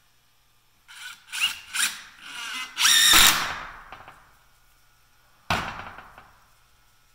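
Craftsman cordless impact driver driving a screw: three short trigger bursts about a second in, then a longer, louder run around three seconds in as the screw goes home. A single clunk follows at about five and a half seconds.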